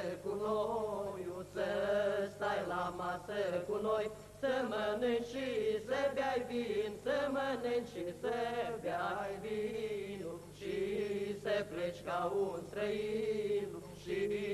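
Men singing a Christmas carol together in a slow, chant-like melody with long held notes, the phrases separated by short breaks.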